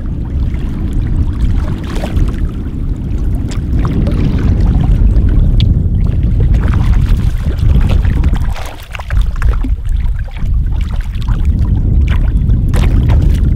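Heavy wind rumble on the microphone that eases briefly about nine seconds in, over the sloshing and splashing of shallow sea water around wading legs. Near the end a fish is lifted out of the water.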